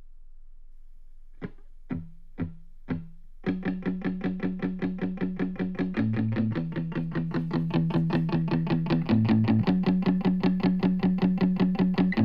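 Electric guitar music playing from an Ultimate Ears WONDERBOOM 3 Bluetooth speaker. After a short lull, four single picked notes ring out. Then, from about three and a half seconds in, a fast, evenly picked riff starts over a shifting low note and grows gradually louder.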